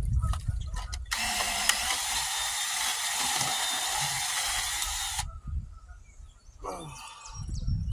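Electric drill turning a long 5-ft electrician's drill bit, run for about four seconds with a steady high hiss that starts and cuts off abruptly.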